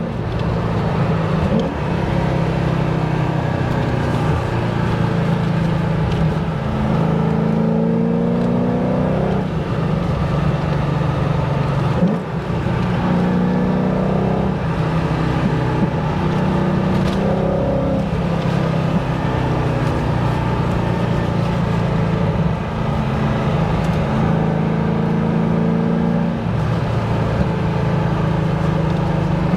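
Holden VY Commodore SS V8 engine heard from inside the cabin while driving, its note climbing and dropping back several times.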